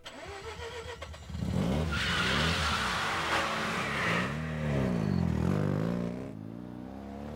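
Sports car engine revving as the car accelerates away, its pitch rising and falling through the revs, with a rushing hiss over the middle of it. It fades out near the end.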